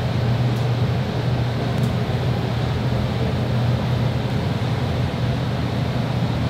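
Steady low mechanical hum under an even rushing noise, unchanging throughout.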